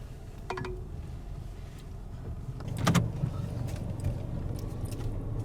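Low, steady hum inside a car, with a light click about half a second in and a louder knock about three seconds in.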